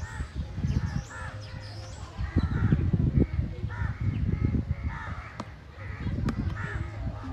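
An animal calling repeatedly in short, harsh calls, about one or two a second, over low buffeting noise on the microphone.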